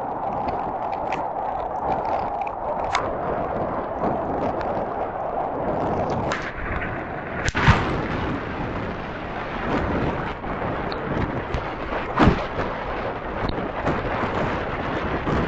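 Typhoon wind and heavy rain making a steady rushing noise, with gusts buffeting the microphone. Two sharp bangs stand out, one about seven and a half seconds in and one about twelve seconds in.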